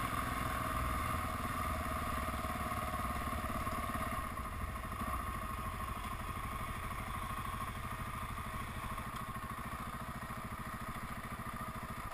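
Dual-sport motorcycle engine running steadily as the bike rides along a dirt road, easing off and quieter after about four seconds as it slows to a stop.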